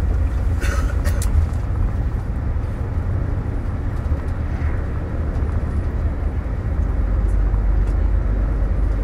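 Flixbus coach driving along: a steady low rumble of engine and road noise, with a few sharp clicks about a second in.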